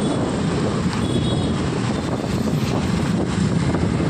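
Motor scooter riding in traffic: wind buffeting the handlebar-mounted phone microphone over the scooter's engine and road noise, steady.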